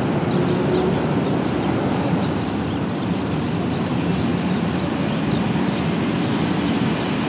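Steady suburban road traffic noise, a continuous hum of passing vehicles, with small birds chirping faintly at intervals.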